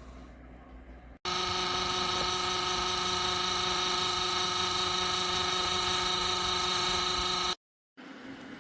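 Small ceramic space heater's fan motor running, a loud steady whir with a high motor whine. It starts suddenly about a second in and cuts off abruptly near the end.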